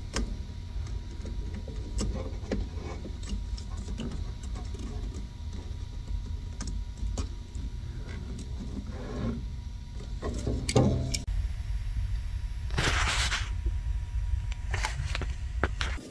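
Hose clamp crimping pliers squeezing the ear of a clamp on a rubber hose: small metal clicks and handling noises over a steady low hum. A few short rasping noises come in the second half, the longest about three-quarters of the way in.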